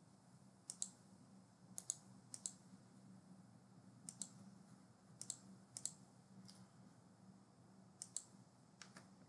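Faint computer mouse clicking: about nine sharp clicks at irregular intervals, most as quick doubles, over a low steady hum.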